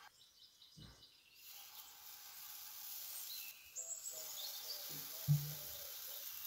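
Pancake batter sizzling faintly in a hot, oiled non-stick frying pan, a soft steady hiss that sets in about a second and a half in. A short knock of the wooden spoon against the pan comes about five seconds in.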